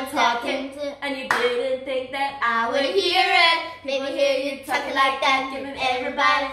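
A woman and a girl singing a chant together, with hand claps.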